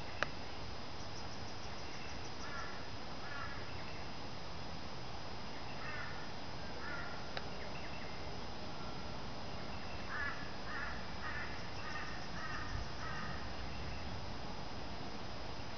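Crow cawing in short runs of harsh calls, with a longer run of about six caws near the end, over a steady faint high-pitched tone.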